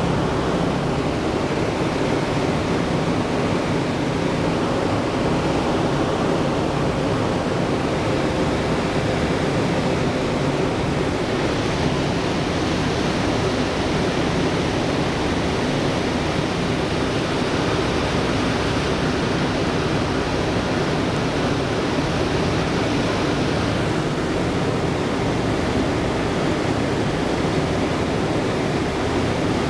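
B-17G bomber heard from inside the fuselage in flight: the steady drone of its Wright R-1820 Cyclone radial engines mixed with the rush of air past the airframe, on the approach to landing. A brighter hiss joins in for about twelve seconds in the middle.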